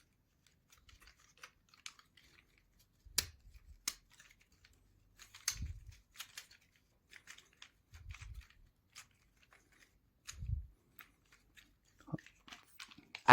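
Small basswood model parts being handled and pressed into their slots: scattered faint clicks and taps of wood on wood, with a few soft low thumps.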